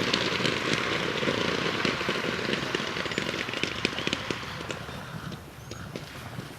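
Many paintball markers firing at once, heard from a distance: a dense, rapid crackle of pops that thins out and dies away about five seconds in.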